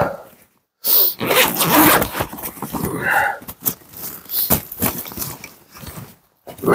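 A backpack's zipper being pulled and the pack's fabric rustling as hands dig through it: a run of scratchy rustles and zips with short pauses, stopping briefly near the end.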